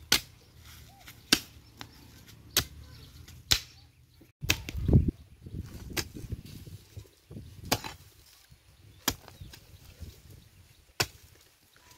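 Digging hoe chopping into damp soil again and again, about eight sharp strikes spaced a second or two apart, loosening earth to clear a trench. One heavier, longer scrape of soil comes about five seconds in.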